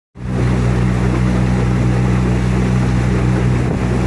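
Yamaha 20-horsepower tiller outboard motor running steadily under way, pushing the boat during its break-in period, a steady low hum over the rush of water along the hull.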